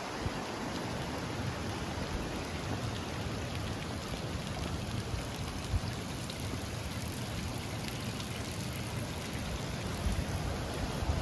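Spring water pouring from several pipes in a stone wall and splashing onto steel drain grates, a steady even splashing.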